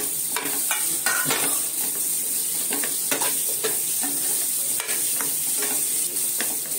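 Drumstick pods, potatoes and tomatoes sizzling in oil in a nonstick frying pan, with a steady hiss, while a metal spatula stirs them, knocking and scraping against the pan at irregular moments.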